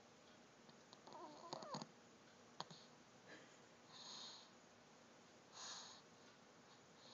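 Faint snoring: a short, wavering, wheezy whistle about a second in, then two soft hissing breaths a second and a half apart, with a few small clicks.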